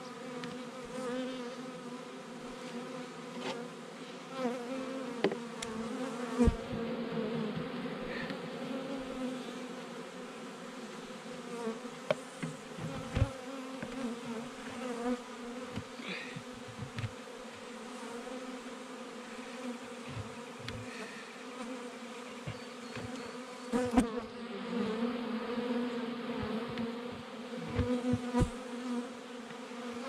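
A swarm of honey bees buzzing close by, a steady low hum throughout, with a few scattered short knocks and bumps.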